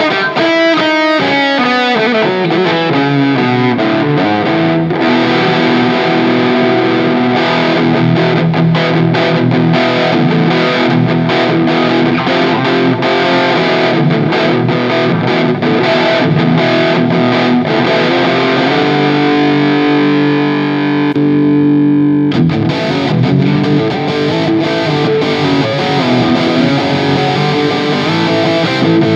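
SQOE SEST250 electric guitar played with distortion through an M-VAVE Cube Baby effects unit: a lead solo that opens with a fast descending run, holds a few sustained notes past the middle, then carries on with busy lead lines.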